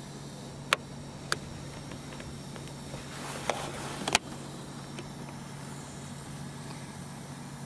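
A few sharp plastic clicks and taps as hands handle the front grille around the installed LED grille lights, the loudest just under a second in and a double click about four seconds in, over a steady low hum.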